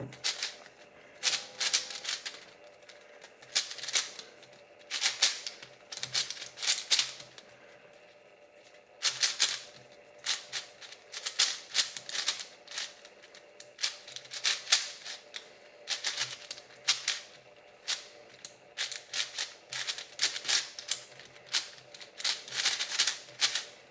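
Moyu Aochuang 5x5 speedcube being turned fast: bursts of rapid clacking layer turns separated by short pauses. The plastic puzzle is fresh out of the box and still feels very dry.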